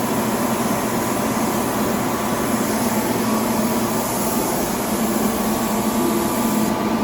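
A machine running steadily: a constant low hum under an even rush of air, with no change in pitch or level.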